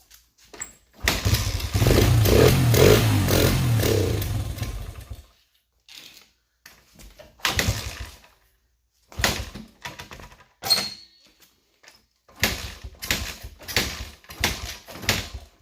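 Honda XR100R's small single-cylinder four-stroke engine firing and running for about four seconds before dying out; more starting fluid is called for right after. Several short bursts of sound follow.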